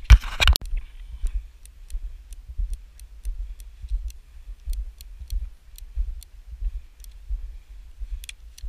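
A loud clatter of handling near the start, then footsteps on grass at a walking pace, about one and a half steps a second, with light sharp clicks from gear carried along.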